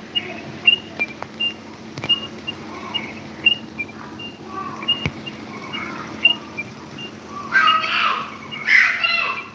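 Small electric desk fan running with a low steady hum, under short high chirps that recur about twice a second. Near the end come two louder, longer calls.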